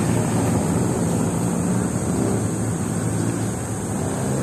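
Steady low rumble of street traffic, mixed with wind buffeting the phone's microphone.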